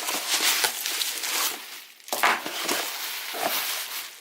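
Packing material being handled and pulled out of a box: continuous crinkling and rustling with short crackles, easing briefly about halfway through.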